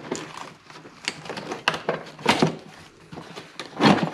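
Plastic knocks, clicks and rustles of a car's factory air filter housing being worked loose and lifted out of the engine bay, with a louder clunk about two seconds in and another near the end.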